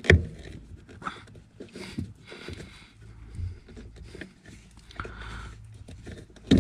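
Rubber brake pedal pad of a BMW M2 Competition being pulled off the metal pedal by hand. A sharp knock just after the start and another near the end, with scattered rubbing and scraping of rubber against the pedal in between.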